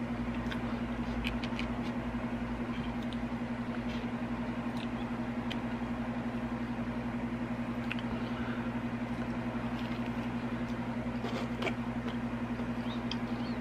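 A steady low hum, with faint scattered clicks and smacks from chewing a mouthful of pizza.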